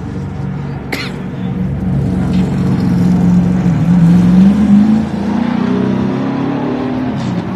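NASCAR stock car's V8 engine running at low revs as the car drives down pit road past the listener, growing louder to a peak about four and a half seconds in, with its pitch rising a little as it goes by, then fading.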